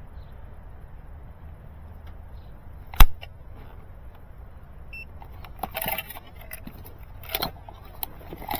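A single loud, sharp click about three seconds in, then a few short rattles of small hard objects being handled, over a low wind rumble on the microphone.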